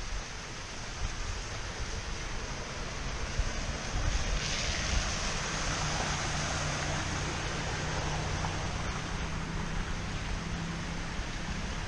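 Wind buffeting the microphone over a steady wash of water noise; about four seconds in, an SUV drives through the flooded street, its tyres spraying through the water in a swell of noise that fades over the next few seconds.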